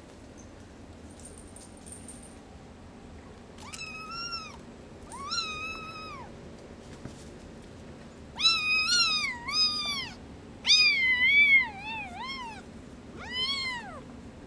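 Hairless Bambino Sphynx kitten meowing again and again: about eight high, short meows. The first two are softer, and a louder run of cries comes in the second half.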